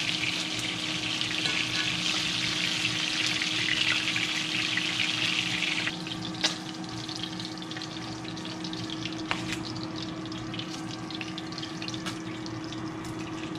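Fish pieces frying in hot oil in a cast-iron skillet, a steady sizzle that drops to a quieter crackle about six seconds in as the pieces are lifted out of the pan. Light clicks of a metal fork against the skillet and plate, over a steady low hum.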